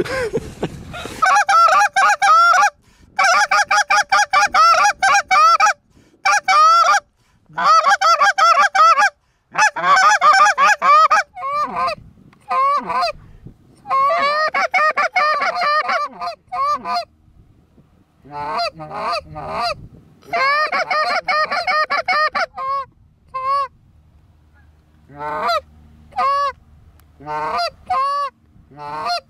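Canada goose honks and clucks, loud and rapid, in runs of a few seconds with short breaks between; in the second half they come more spaced out, single honks in quick groups.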